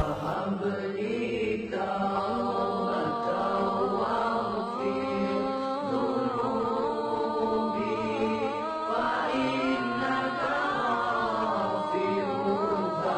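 Unaccompanied melodic vocal chanting, with long held notes that bend and turn in pitch, starting abruptly as the soundtrack changes.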